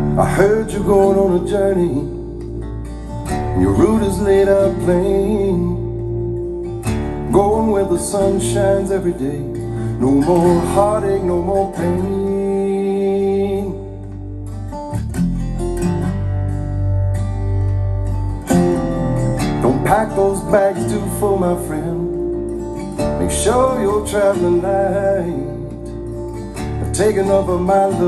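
Acoustic guitar music with a deep bass line, played back through a pair of BRZHIFI T300 class AB mono block power amplifiers.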